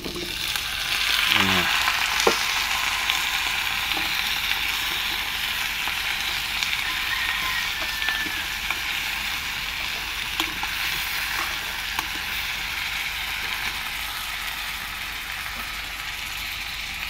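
Cut potatoes and carrots dropped into hot oil in a pan of sautéing chicken, onion and garlic, sizzling loudly. The sizzle holds steady and eases slowly, with a few light clicks of a spatula stirring against the pan.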